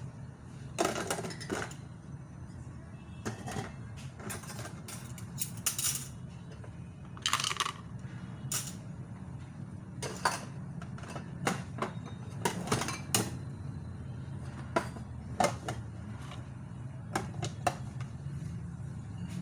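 Dishes and cutlery clattering as they are handled: irregular clinks and knocks, some ringing briefly, over a steady low hum.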